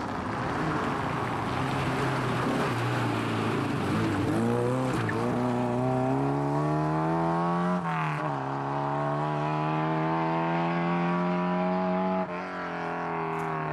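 Rally car at full throttle on a special stage. It rushes past close by, then accelerates away with the engine pitch climbing through the revs. It drops sharply at a gear change just past halfway, climbs again, and drops once more near the end.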